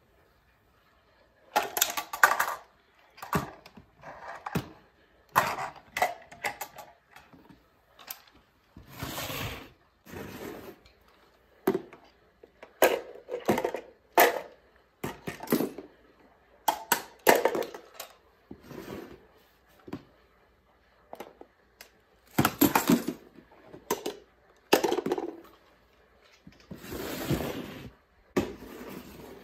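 Miniature plastic trash bins knocking and clattering on a tile floor as a reacher-grabber picks them up, tips them over a plastic wastebasket and sets them down: many separate knocks and rattles, with a few longer rustles as the contents spill out.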